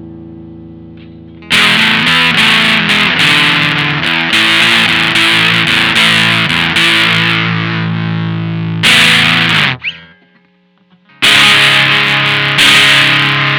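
Electric guitar through a Maestro Fuzz Tone FZ-M fuzz pedal, playing a low-gain fuzzed riff. A held chord fades at first. About a second and a half in, a loud run of quickly picked notes and chords starts. A chord is cut off sharply at about ten seconds, there is a second of near silence, and then more fuzzed chords are struck.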